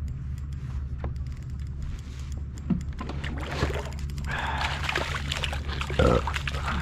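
A hooked sheepshead splashing at the water's surface beside a kayak as it is brought to a landing net, with water sloshing and a loud splash about six seconds in. Scattered clicks and knocks of gear on the kayak come earlier, over a steady low rumble.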